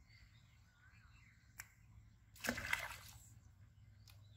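A short splash of pond water about halfway through, as the fishing rod is jerked up on a bite and the line and hook are pulled up through the surface. A single sharp click comes a moment before it.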